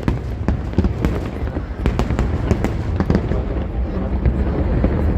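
Aerial fireworks display going off: a dense run of irregular sharp bangs and crackles, several a second, over a continuous low rumble of distant bursts.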